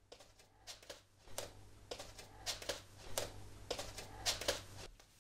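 Crackling static with a low steady buzz on a phone line, boosted in volume: irregular clicks and crackles over a hum that cuts off near the end.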